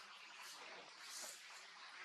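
Near silence: faint background hiss.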